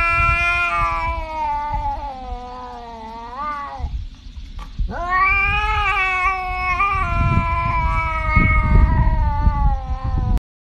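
Tabby cat caterwauling: two long, drawn-out yowls. The first bends upward just before it breaks off about four seconds in, and the second runs on until it cuts off abruptly near the end.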